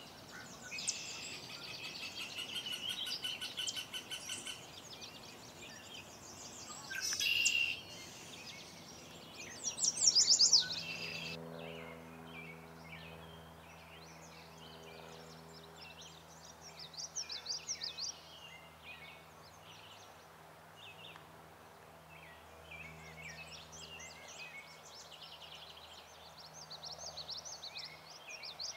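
Small birds chirping and trilling in a run of short high calls, with two louder bursts about seven and ten seconds in. From about halfway a faint steady hum lies underneath.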